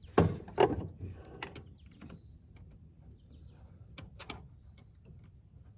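Plastic coolant overflow tank and its hoses being handled and pulled loose: a few sharp clicks and knocks, loudest in the first second, with two more about four seconds in. A steady faint high tone runs behind them.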